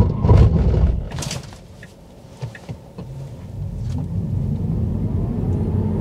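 Tyre and road rumble inside a Tesla Model 3 Standard Range Plus braking hard on Falken tyres, dying away about a second in as the car comes to a stop. After a short lull the car pulls away, the rumble building again with a faint rising electric-motor whine.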